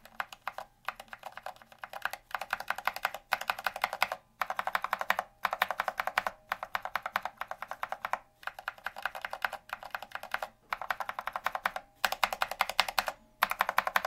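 Gateron Brown tactile mechanical keyboard switches under ABS SA-profile keycaps, one key pressed rapidly and repeatedly in runs of about a second with short pauses. Partway through, the presses move from an unfilmed switch to one fitted with a switch film.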